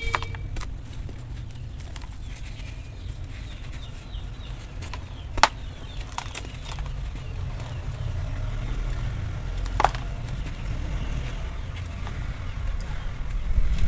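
Hands crushing and crumbling dry sand-cement lumps, a gritty crunching with powder and grains falling back into the heap. Two sharp cracks stand out, about five and ten seconds in, as lumps snap.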